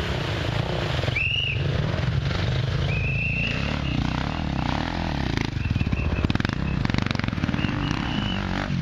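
Off-road dirt bike engine revving up and down as it climbs a loose dirt slope, loudest about six to seven seconds in as it passes close.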